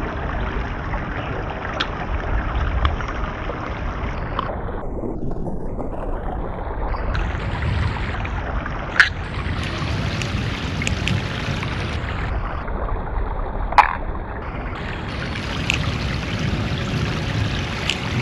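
Shallow creek running over rocks, a steady rushing, with the clicks and clacks of balisong handles swinging and meeting as the knife is flipped; two sharper clacks stand out, about nine and fourteen seconds in.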